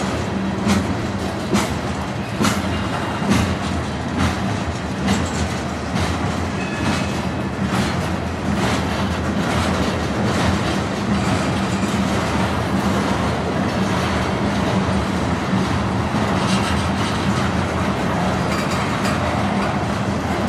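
Freight train cars rolling past: tank cars and covered hoppers rumbling steadily, their wheels clacking over rail joints about once a second. The clacks are sharpest in the first half and later blend into the rumble.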